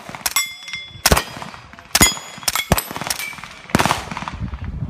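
A string of about seven shots from a suppressed 9mm AR short-barrel rifle, a half second to a second apart. Steel plate targets ring when hit near the start and again about two seconds in.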